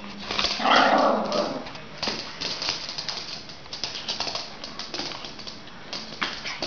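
A Yorkshire terrier barks once about a second in, then a run of light clicks and taps follows while it plays.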